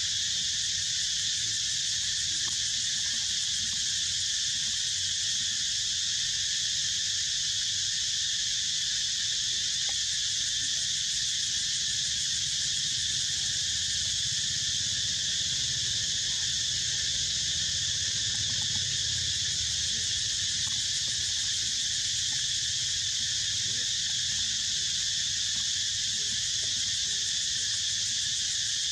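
Steady, high-pitched chorus of insects, unbroken and even in level, over a faint low rumble.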